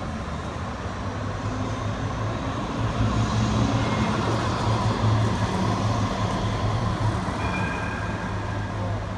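A D2-class Melbourne tram, a Siemens Combino, passing close by with a steady low electric hum that swells as it goes past mid-way and then eases, over street traffic noise.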